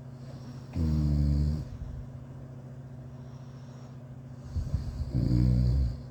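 A person snoring in sleep: two loud, low-pitched snores about four seconds apart, each under a second long, the second starting with a rattle. A steady low hum runs underneath.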